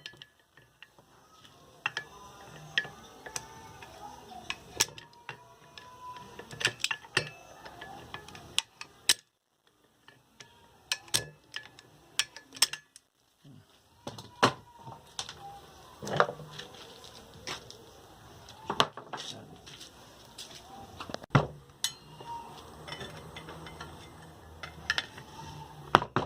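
Irregular sharp metallic clicks and clinks of adjustable pliers gripping and squeezing around the bearing seat of a ceiling fan motor's cover. The cover is being worked loose over a water-damaged, rusted bearing.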